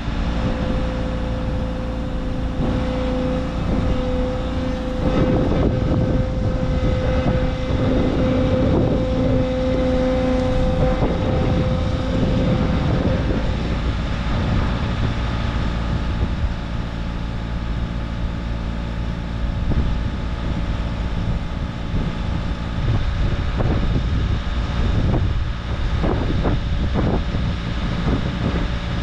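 Bobcat T66 compact track loader's diesel engine running steadily while its raised lift arms hold a sign, with a steady higher whine over the engine for the first dozen seconds or so. Wind on the microphone and a few brief knocks come through later on.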